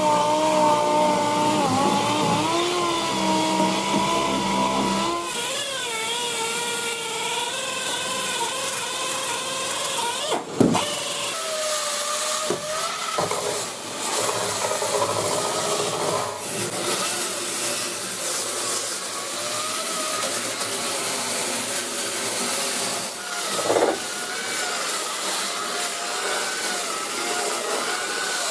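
Corded 7-inch variable-speed rotary polisher/sander spinning a 6-inch orange nylon-bristle abrasive cup brush against rusty, painted sheet steel, scrubbing the engine bay down for paint prep. The motor whine wavers up and down as the brush is pressed into the metal, with a few brief knocks as it catches.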